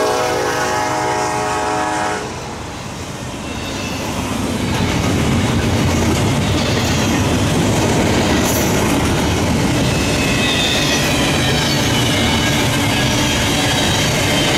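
A freight locomotive's air horn sounds a chord that cuts off about two seconds in. After it, a double-stack container train keeps rolling past with the steady noise of its wheels on the rails.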